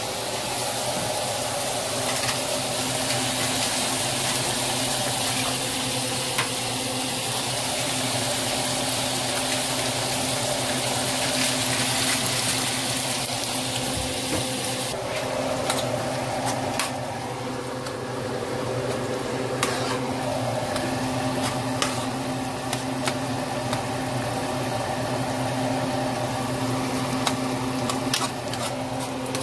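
Shrimp sizzling in a frying pan, a steady hiss over a low hum. About halfway the hiss thins, and a spoon stirring the shrimp clicks against the pan now and then.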